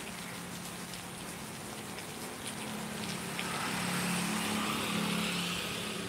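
Steady rain falling, with a car passing on the wet road: a hiss of tyres on water swells about halfway through and fades.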